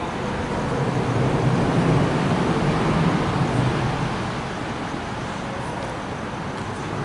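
A car passing on a wet road: tyre hiss and engine hum swell to a peak about two seconds in, then fade.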